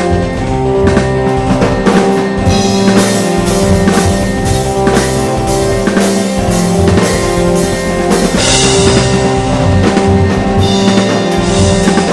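Instrumental rock music: a drum kit plays a steady beat with kick and snare strikes over sustained, held chords. About eight seconds in, the cymbals open up into a bright crash wash that carries on to the end.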